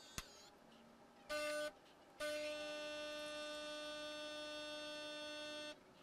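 Gaggia Velasca espresso machine's pump buzzing as it brews a shot, played back sped up: a click, a short buzz, a brief pause, then a steady buzz for about three and a half seconds that stops near the end.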